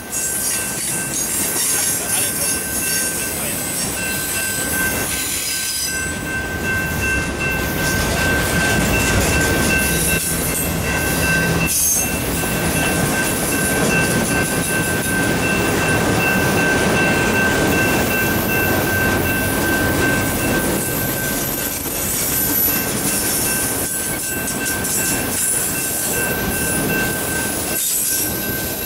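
Autorack freight cars rolling past close by: a steady rumble and rattle of steel wheels on rail, with a thin steady high-pitched tone running over it.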